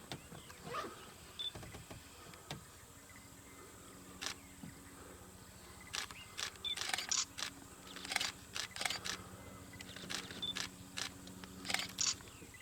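Camera shutters clicking, in single frames and short rapid bursts at irregular intervals, with a few short high beeps in between. A faint steady low hum runs underneath.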